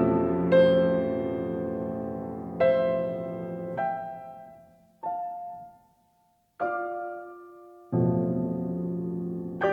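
Solo piano music: slow, sparse chords, each struck and left to ring and fade, with a short full silence a little past the middle.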